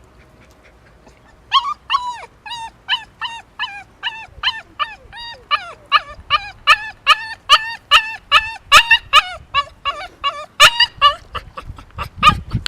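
A dachshund whining in a long run of short, high-pitched yips, two to three a second, starting about a second and a half in. This is the whining of a dog pining for an absent person.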